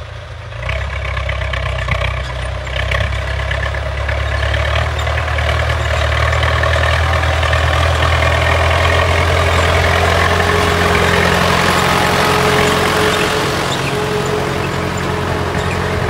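Old tractor's diesel engine running steadily under load while it pulls a harrow through ploughed soil. The sound grows louder as the tractor approaches and comes close.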